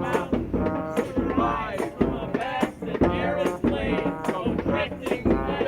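Street brass band music: horns playing a tune together over a steady percussive beat.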